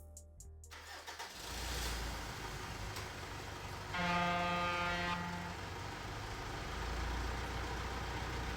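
A vehicle engine running with a low rumble, and a horn sounding for about a second midway through.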